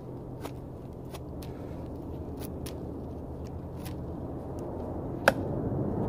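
Knife blade carving a small piece of wood, heard as a few sparse scraping clicks over a steady low background rumble, then one sharp click near the end as the knife is laid on the wooden stump.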